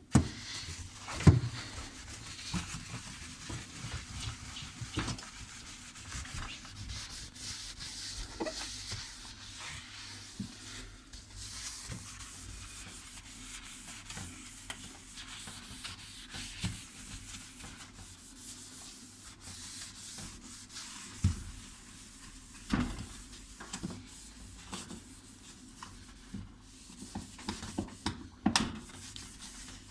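Steady scrubbing and rubbing during a dishwasher cleaning, with a few sharp knocks along the way.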